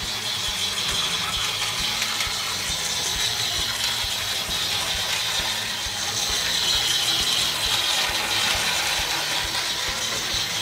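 Plarail toy train running on blue plastic track: the battery motor and gearbox of its DD51 locomotive, with the wheels on the track, making a steady whirring gear rattle.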